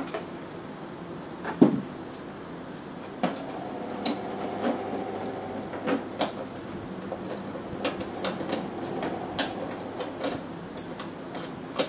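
Scattered small metallic clicks and taps of bolts, washers and nuts being fitted by hand through steel slotted angle corner plates on the back of a TV, with one louder knock about one and a half seconds in, over a steady background hum.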